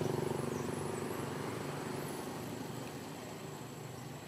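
A motor vehicle's engine passing by and moving off: a steady low hum that fades gradually, with a few faint high chirps above it.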